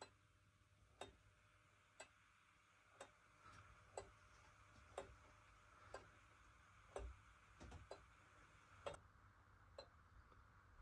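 Deadbeat escapement of a home-built brass Tekippe regulator clock ticking faintly, about one tick a second, as the escape wheel's teeth drop onto the pallets; the ticks turn slightly uneven near the end. These are the first ticks of the newly assembled gear train.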